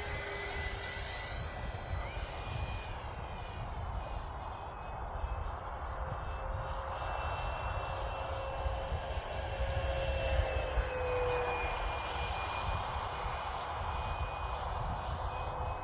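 Electric ducted fan of a Durafly Vampire RC jet whining in flight at part throttle. Its tones shift slightly in pitch as the model flies around, stepping up about two seconds in and swelling around ten seconds in. Wind rumbles on the microphone underneath.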